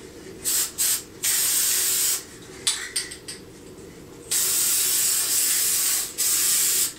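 Aerosol can of silver metallic spray paint hissing in bursts. There are two short puffs, a spray of about a second, a few quick puffs, then a long spray of about two and a half seconds near the end.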